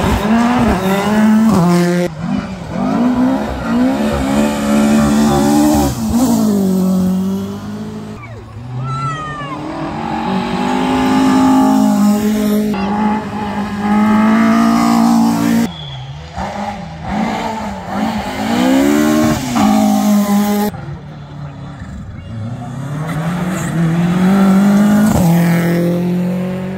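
Rally cars passing one after another at speed on a gravel forest stage, their engines revving up and falling away over and over through gear changes and lifts. The sound breaks off abruptly several times between cars.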